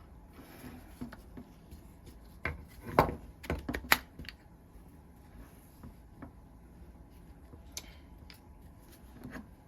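Sharp metal clicks and knocks from a quick-grip bar clamp's handle and lever mechanism being worked by hand, a burst of them about three to four seconds in and a few faint ticks later. The mechanism is binding, which the owner puts down to rust on the shaft jamming the plates.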